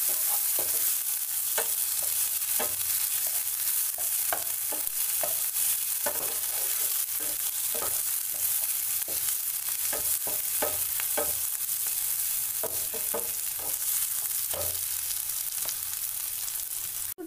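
Chopped onions, garlic and ginger sizzling in oil in a non-stick frying pan, stirred with a wooden spatula that scrapes and knocks against the pan at irregular moments.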